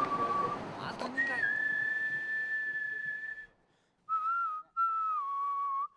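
A person whistling held notes. The first ends about half a second in. A long, higher note follows after a short pause. After a brief silence come a short note and a longer one that slides down in pitch at the end.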